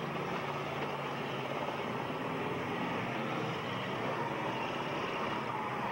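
Engines of several demolition derby cars running and revving together in a steady, dense din while the cars push against each other.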